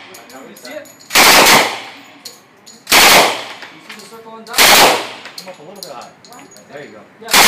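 Automatic firearm fired in short bursts of about half a second each, three bursts and a fourth beginning at the end, each followed by an echoing decay.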